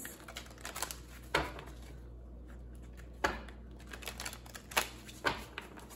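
A tarot deck being shuffled by hand: a handful of short, sharp card snaps and slaps a second or so apart, with faint rustling of the cards between them.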